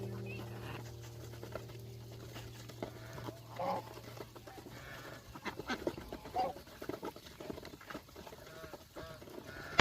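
Geese calling in short honks at irregular intervals, with two louder calls about a third and two thirds of the way through, over many small clicks and rustles of the flock moving and pecking.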